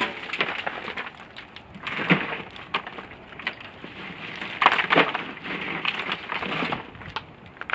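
Loose ice cubes clattering and crunching together, with plastic ice bags crinkling, as ice is handled and dropped into a cooler. Louder clatters come about two seconds in and again around five seconds.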